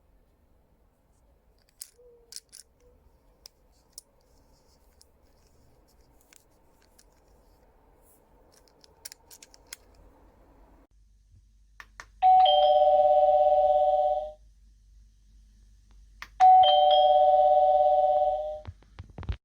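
Byron DBY-22311 wireless doorbell chime unit ringing a two-note ding-dong, a higher note followed by a lower one, twice about four seconds apart, each ring lasting about two seconds. Before the rings come faint scattered clicks and taps.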